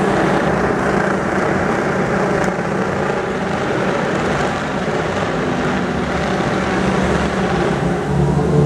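Supersport racing motorcycle engine running steadily at low revs as the bike rolls slowly back to the pits, growing slightly stronger near the end.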